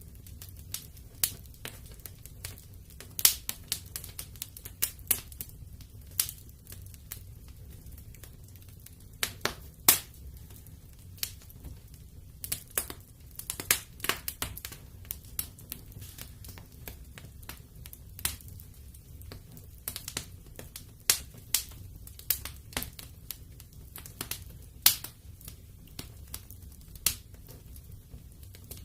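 Wood fire in a fireplace crackling: irregular sharp pops and snaps, some much louder than others, over a low steady rumble.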